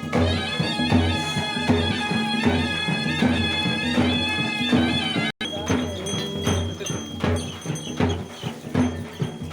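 Traditional folk music: a held, pitched melody line over regular drum beats, cut off for a moment about halfway through.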